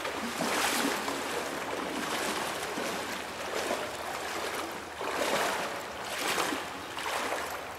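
Water splashing and sloshing, swelling and easing in several surges.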